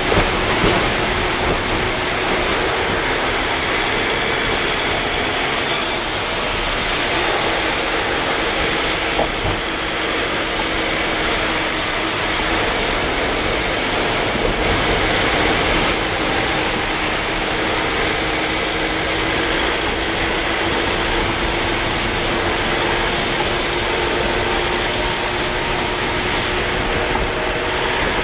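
Steady noise of heavy rain and wet-road tyre spray heard from inside a moving vehicle, with a faint steady hum of the vehicle running underneath.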